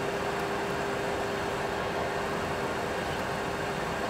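Steady cockpit noise of a Boeing 737 Classic full flight simulator in the climb: simulated jet engine and airflow sound, an even rush with a constant hum.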